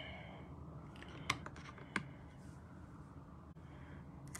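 A few light clicks and taps of small thin metal cutting dies being picked up and handled: a cluster of four or five clicks about a second in, then two quick clicks near the end, over faint steady room noise.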